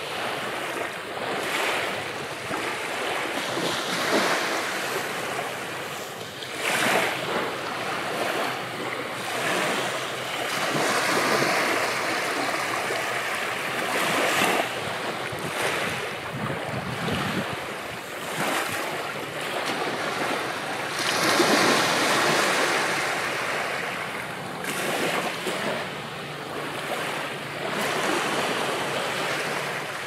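Ocean surf breaking and washing up on a beach, a continuous wash that swells and ebbs with each wave, loudest about two-thirds of the way through.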